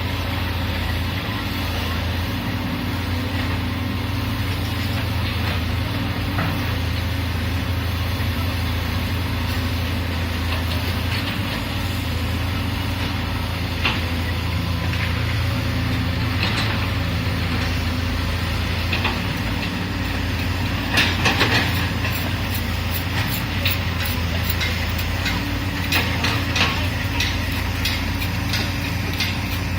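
Excavator's diesel engine running steadily, with scattered metallic clanks and knocks. A cluster of louder knocks comes about two-thirds of the way through, and a run of quick ticks follows near the end.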